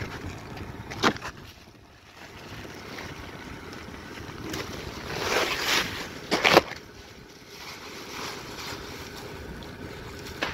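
Wind blowing across the microphone, swelling in a gust just past the middle. A sharp knock comes about a second in, and two more in quick succession just after the gust.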